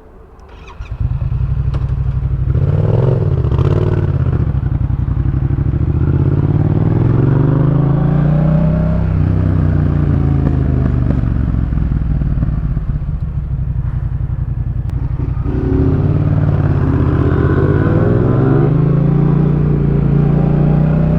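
2018 Yamaha MT-07's parallel-twin engine through a full Jeskap K4 aftermarket exhaust, heard from the rider's seat. It starts loud about a second in, then climbs and drops in pitch several times as the throttle is opened and closed.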